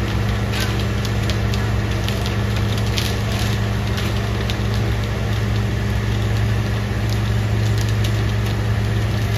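Concrete mixer truck's engine running steadily with a constant low hum, with irregular crackling clicks and rattles over it.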